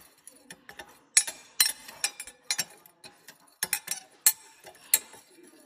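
Metal spoon stirring dry spice mix in a glass Pyrex measuring cup, clinking against the glass in a series of sharp, irregular taps.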